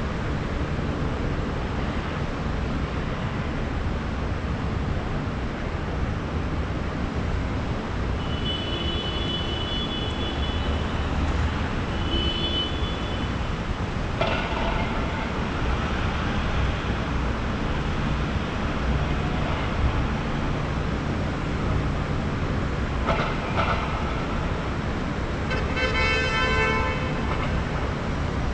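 City street traffic: a steady rumble of cars and buses, with car horns honking a few times, the longest and loudest near the end.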